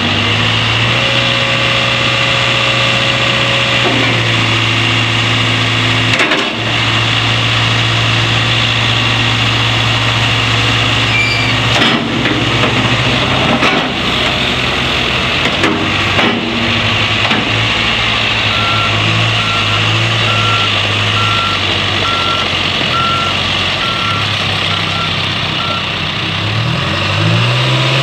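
John Deere 310SK backhoe loader's diesel engine running under changing load, its pitch stepping up and down as the machine works, with a few knocks. Past the middle its backup alarm beeps about once a second for several seconds, and near the end the engine revs up.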